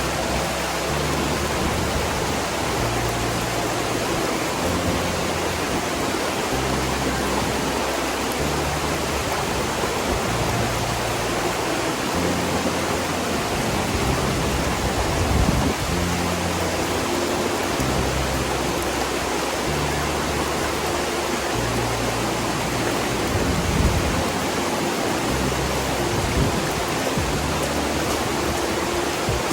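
Steady, even rush of a large tiered waterfall, with background music underneath carrying slow, stepwise-changing bass notes.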